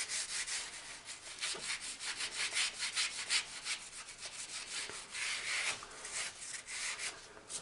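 A rag scrubbing over the oily, sawdust-caked metal casting of a shaper's cross-rail in quick back-and-forth strokes, about four or five a second, wiping off grease and muck.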